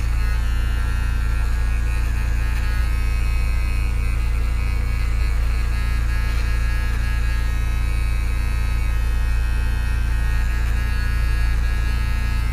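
Electric pet grooming clipper running with a steady hum, its blade trimming the hair on a small dog's paw pads.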